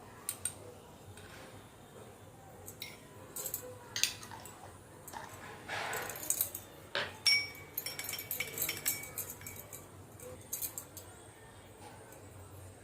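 A spoon stirring in a small dish, mixing honey into tulsi-leaf juice: irregular clinks and scrapes against the dish, a few ringing briefly, busiest in the middle.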